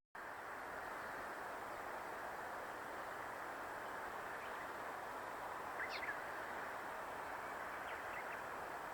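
Steady outdoor background hiss with a few short bird chirps, a quick cluster about six seconds in and fainter ones around eight seconds.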